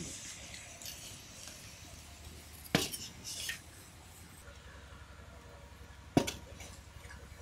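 Two sharp knocks about three and a half seconds apart: charred bamboo cooking tubes, just lifted from a wood fire with tongs, knocking against a metal bowl. A short hiss follows the first knock.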